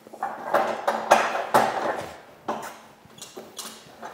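Irregular scraping, rattling and a few sharp knocks as heavy gear is shifted and handled on a hard floor.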